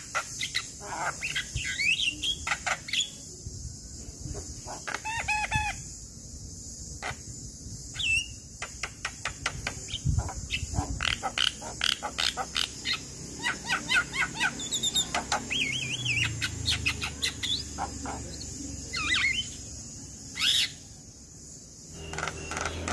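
Male Javan myna singing a varied chattering song: rapid clicks and rattles mixed with whistled notes that glide up and down, in bursts with short pauses, over a steady high hiss.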